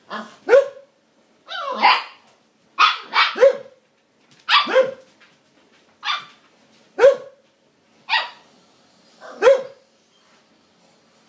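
Siberian husky puppy play-barking at another dog to get it to play: about a dozen short, high barks, singly or in quick runs of two or three, each dropping in pitch.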